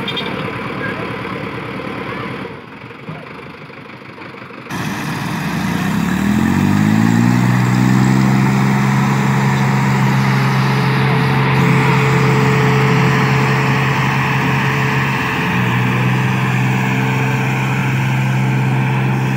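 Tractor diesel engine revving up over about two seconds, then held at high, steady revs under heavy load as it drags a loaded trolley through soft dirt. The first few seconds are quieter and change abruptly to the engine sound.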